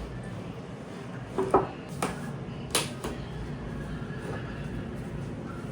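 A few short knocks and clicks, the sharpest near the middle, over a steady low background hum.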